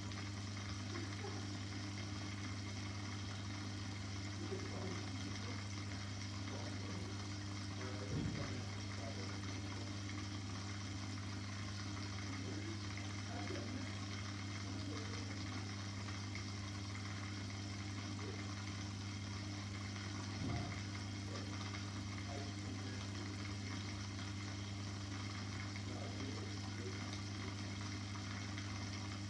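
Aquarium pump humming steadily with water bubbling. A soft thump comes about eight seconds in, and another comes about twenty seconds in.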